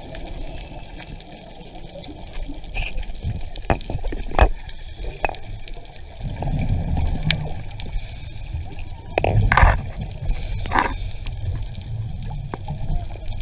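Underwater audio from a diver's camera: water gurgling and bubbling, with louder bursts of bubbles about six and nine seconds in and scattered sharp clicks.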